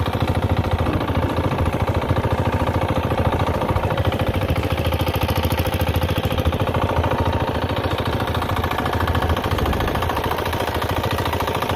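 Fishing boat's engine running steadily, with a fast, even beat.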